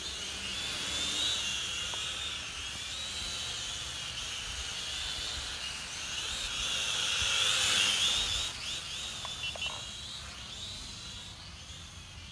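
Small quadcopter's motors and propellers whining in flight, the pitch wavering as it manoeuvres; it grows louder until about eight seconds in, then fades as it flies away.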